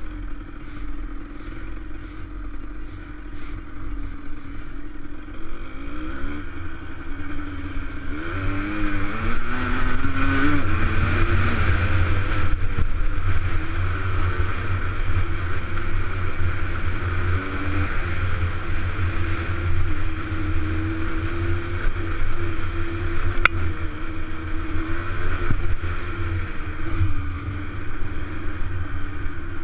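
Dirt bike engine running, heard from the rider's helmet camera. It picks up speed with rising pitch about a quarter of the way in, then holds a steady cruising pace over a low rumble, with a single sharp click about three-quarters of the way through.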